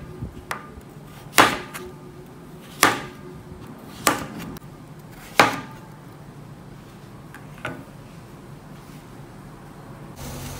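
Large chef's knife chopping through pumpkin and hitting a plastic cutting board: four sharp chops about a second and a half apart, with a few lighter knocks, then a last light knock and quiet.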